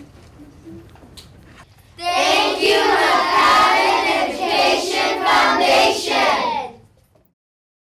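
Low classroom noise with a few small knocks, then about two seconds in a class of children's voices rise together in unison, loud, for about five seconds before cutting off suddenly.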